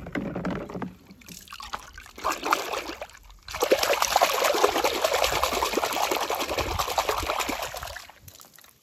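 Water trickling and splashing, first in a couple of short spells, then steadily from about three and a half seconds in until it fades out near the end.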